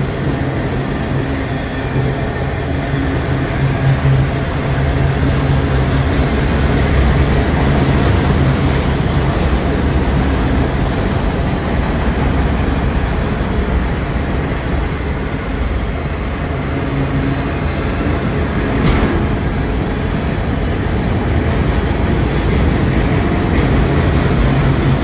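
Union Pacific mixed manifest freight train rolling out: a steady rumble of rail cars on the track, with a low engine hum that weakens after a few seconds and comes back near the end.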